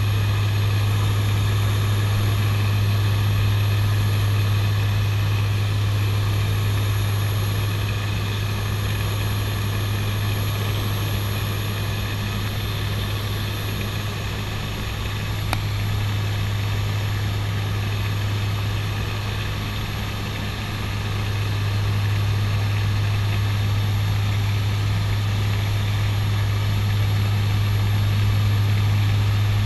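The twin turboprop engines and propellers of a CASA NC-212-200 Aviocar in flight, heard inside the cockpit as a steady deep drone with a thin high whine above it. The drone eases off slightly twice, around the middle and about two-thirds of the way through.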